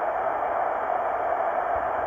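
Heathkit HW-8 receiver hiss from the speaker: steady static with no signal tuned in, shaped by the narrow CW audio filter into a band of noise centred in the mid-range.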